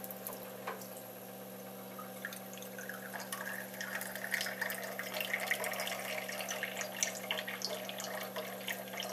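Purified water from an RO/DI unit's product line and wastewater from its drain line trickling and dripping into two small glasses, the trickle getting louder from about three seconds in. Under it runs the steady hum of the system's Aquatec booster pump.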